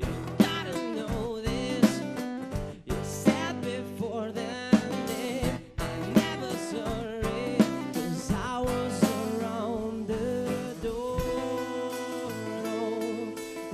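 A live band playing a song: a voice singing over guitar and bass, with sharp drum hits about every second and a half.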